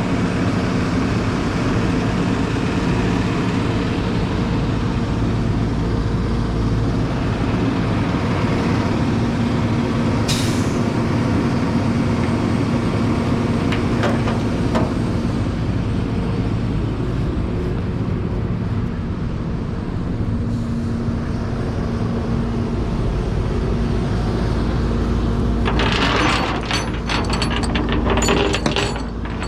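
Tow truck engine running steadily, with a few sharp clicks, then a burst of rapid metallic clicking near the end as a tie-down strap is ratcheted tight.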